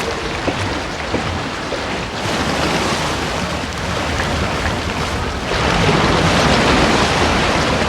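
Steady rushing ocean noise with no whale call in it. It grows louder about two seconds in and again about five and a half seconds in.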